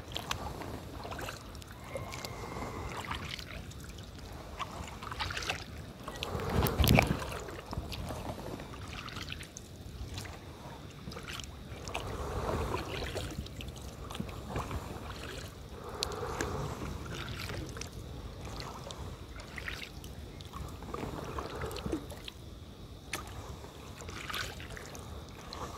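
A double-bladed kayak paddle dipping and pulling through river water, a soft swash every few seconds, with faint drips and ticks between strokes. About seven seconds in there is one louder low rush.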